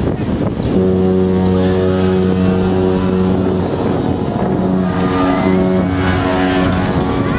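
Deep ship's horn sounding a long blast of about three seconds, then after a short break a second, shorter blast.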